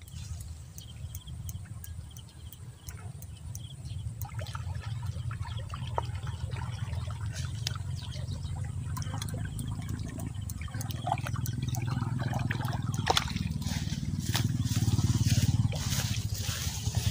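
Light water trickling and splashing as a hooked tilapia is drawn across the pond surface, with a few sharp clicks. Under it runs a steady low rumble that grows louder about ten seconds in.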